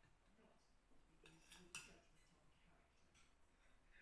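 Near silence, with two faint short clicks near the middle.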